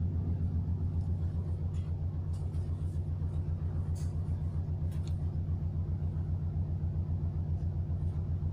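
Car ferry's engines running with a steady low rumble and a fast, even throb.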